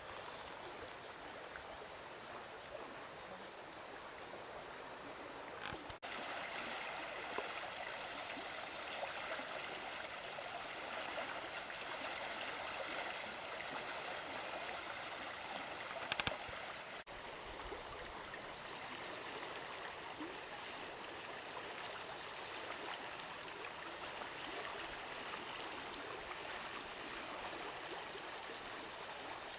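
River water flowing and rippling steadily, with short high chirps repeating every few seconds over it.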